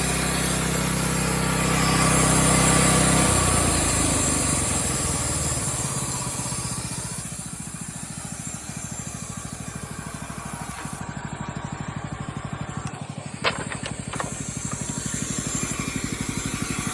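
Small gas engine of a bandsaw sawmill running at high speed, then throttling down about three seconds in to a steady, evenly pulsing idle. Two sharp clicks come near the end.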